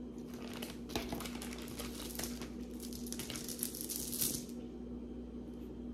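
Costume jewelry being handled, with light clicks and clinks of metal and beads and the crinkling of wrapping. It comes as a quick run of small clicks from about half a second in until about four and a half seconds, over a faint steady hum.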